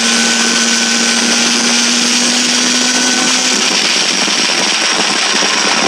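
Suzuki GT two-stroke twin motorcycle running at road speed, heard from the handlebars: a loud, steady, buzzy drone. A faint held note in it drops away about three and a half seconds in.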